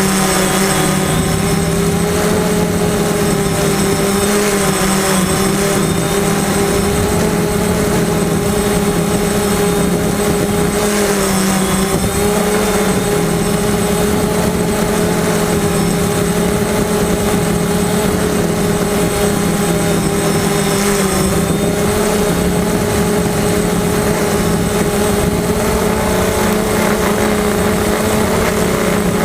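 FPV drone's electric motors and propellers whining steadily, heard from the onboard camera, the pitch wavering and dipping briefly about a third and two-thirds of the way through as the throttle changes.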